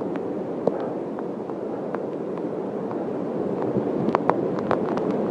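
Typhoon wind and rain on a rain-soaked iPhone microphone: a dense crackling rush peppered with sharp ticks that grows louder toward the end. The crackle comes from the waterlogged microphone, which garbles the sound.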